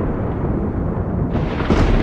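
Thunder rumbling low and continuous, with a sharper crackling peal breaking in about a second and a half in.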